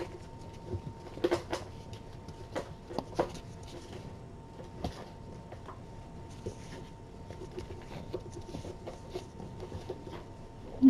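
Scattered light clicks and knocks at irregular times, over a faint steady hum.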